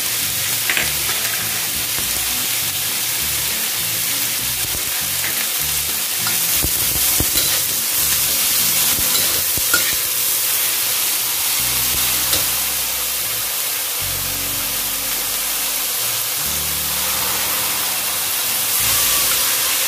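Soybean sprouts and sliced onion sizzling steadily in an oiled wok while a spatula stirs and tosses them, with occasional scrapes and clicks against the pan.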